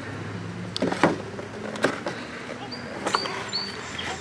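Cardboard pizza box handled and opened, giving a few sharp clicks and taps, the loudest about a second in. Near the end a bird gives three short high chirps, over a steady low hum.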